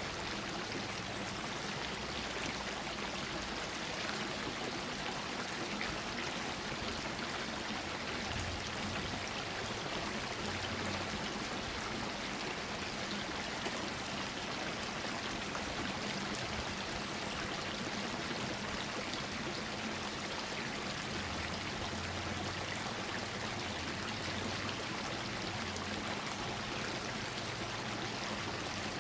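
Shallow stream water flowing and trickling steadily over rocks, an even, unbroken rush.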